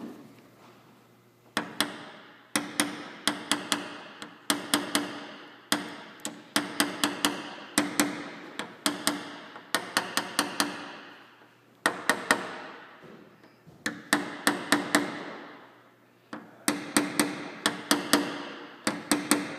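Paintless dent repair tap-down: a plastic tap-down tool on a Toyota 4Runner's hood is struck with a small hammer in quick clusters of light taps, knocking down the last high spots. The taps come in groups of three to six, about one group a second with short pauses, and the hood panel rings briefly after each group.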